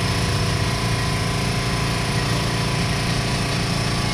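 A small engine or motor running steadily at an even speed, a constant drone with no change in pitch.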